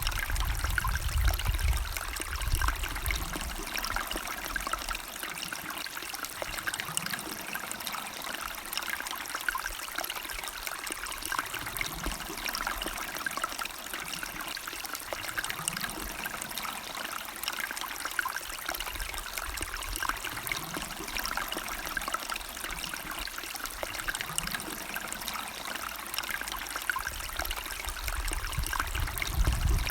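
Small river or stream trickling and burbling steadily, with fine splashing throughout. A low rumble is mixed in for the first couple of seconds and again at the very end.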